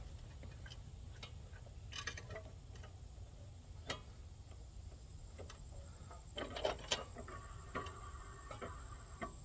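A few faint, irregular clicks and taps of hand tools and metal parts being handled while a small mini-bike engine's clutch is taken apart, over a faint steady high-pitched whine.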